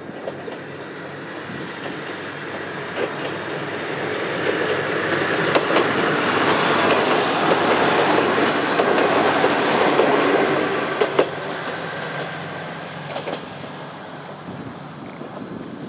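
Kominato Railway KiHa 200 diesel railcar passing close by, its wheels clacking over the rail joints. The sound builds to its loudest around the middle, then fades as the car moves away.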